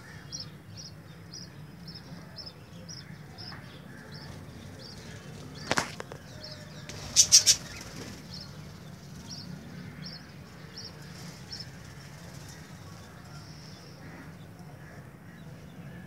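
Aviary of budgerigars chirping: short high chirps repeating about twice a second. There are a few loud, sharp sounds, one about six seconds in and three in quick succession just after seven seconds.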